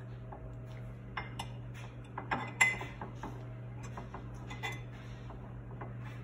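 Butter knife clicking and scraping against a butter dish as butter is cut from the stick, with a series of sharp clinks, the loudest about two and a half seconds in.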